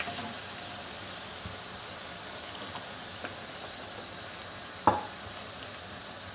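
Papri dough rounds deep-frying in hot oil as they puff up: a steady gentle sizzle with a few faint ticks. One sharp knock about five seconds in.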